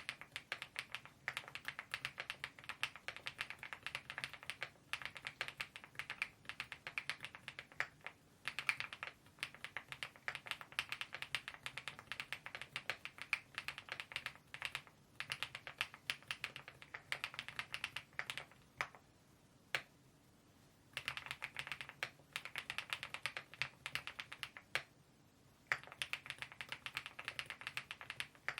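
Fast, continuous typing on a mechanical keyboard fitted with KeyTok Godzilla smile-profile dye-sublimation keycaps. The keystrokes run thick and even, with a pause of about two seconds (one lone keystroke in it) about two-thirds through and another short pause near the end.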